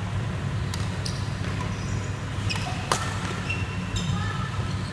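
Badminton rally: several sharp smacks of rackets hitting the shuttlecock, the loudest about three seconds in, mixed with short high squeaks of shoes on the court floor, over a steady low hum.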